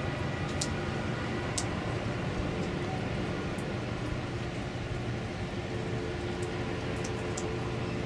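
Steady low rumble of ship engines from a passing container ship and its tug, with a faint hum that rises a little about five seconds in and scattered light ticks.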